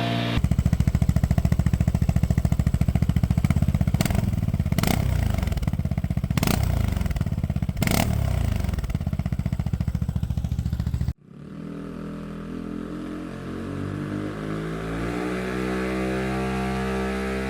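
Vespa GTS 300's single-cylinder four-stroke engine running through a Mivv Delta Race exhaust, revved up and down with a few sharp cracks. It cuts off abruptly about eleven seconds in, and music follows.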